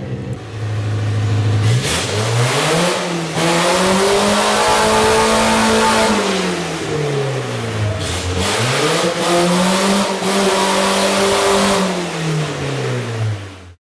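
Geo Tracker / Suzuki Sidekick engine idling briefly, then revving up, holding high and dropping back down, twice over.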